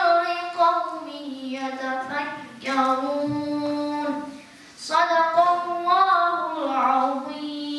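A boy reciting a Quran surah in Arabic in the melodic chanted style, holding long notes that bend slowly in pitch. He pauses briefly for breath a little past halfway, then goes on.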